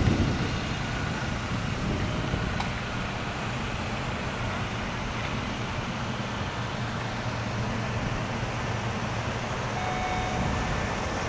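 A car engine idling with a steady low hum.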